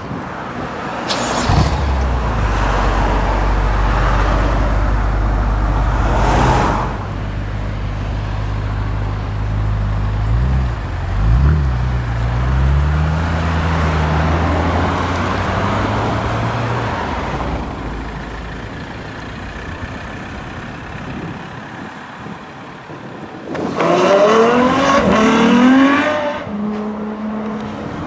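A high-performance car engine starts about a second and a half in and settles into a steady idle, with a brief rev around ten seconds in. Near the end a car accelerates hard, its engine rising in pitch for a couple of seconds.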